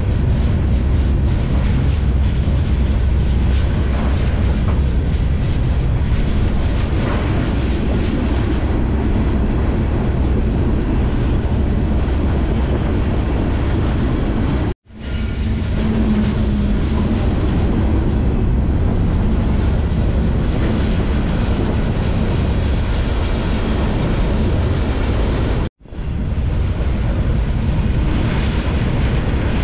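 Freight train rolling along, heard from aboard one of its cars: a steady, loud rumble and rattle of wheels on rails. The sound cuts out for an instant twice, about halfway through and near the end.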